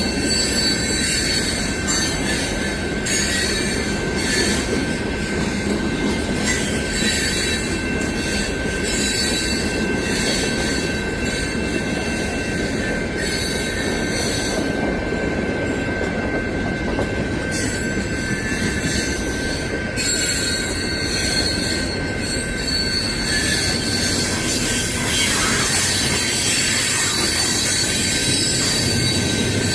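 A long freight train rolling past, its steel wheels squealing in several steady high tones over a continuous rumble of the cars on the rails.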